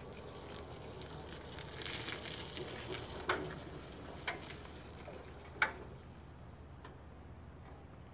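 Taylor Dunn Stock Chaser SC159 electric stand-up utility cart driving slowly: a faint low steady hum, with three sharp clicks or knocks about a second apart midway through.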